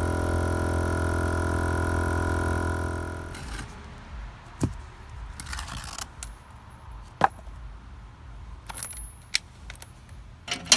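A steady mechanical hum that stops about three and a half seconds in, followed by scattered light clicks and knocks.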